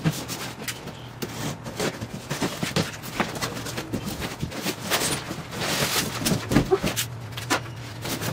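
Cardboard box being opened and a large foam packing block slid out of it: rustling and scraping with a string of sharp knocks and cardboard creaks.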